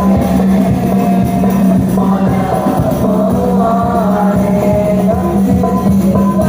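A high voice, a child's, sings a melismatic Islamic devotional song (sholawat) with a gliding, ornamented melody. It is carried over musical accompaniment with a steady low drone.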